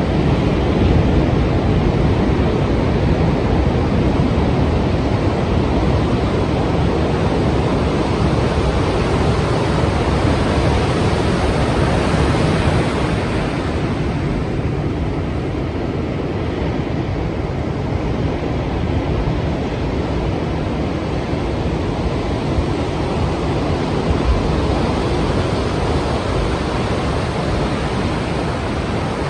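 Strong sea waves breaking as surf, with wind, a steady loud rush of water. The rush eases a little about halfway through.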